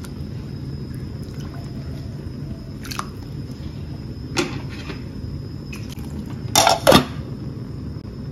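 A glass pot lid set onto a stainless-steel pot: a couple of light knocks, then two sharp clinks close together near the end. A steady low rumble runs underneath.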